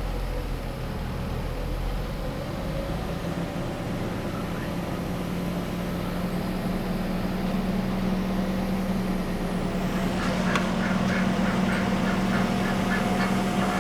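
1991 Mercedes 300CE engine running at a steady idle just after its idle control valve was cleaned and sprayed with Seafoam, while the owner is coaxing it not to stall. About ten seconds in, a quick run of short, evenly spaced sounds joins the hum.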